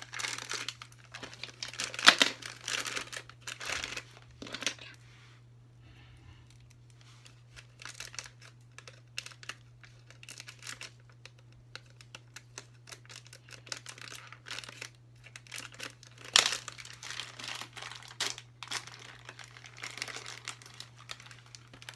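Cardboard and plastic packaging crinkling and rustling in irregular bursts, with sharper crackles about two seconds in and again near sixteen seconds, and a quieter lull around five to eight seconds in. A faint steady hum runs underneath.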